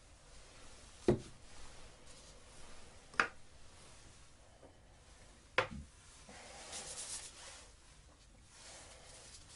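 Three light knocks of objects being set down on a wooden workbench, about two seconds apart, followed by a brief soft rustle.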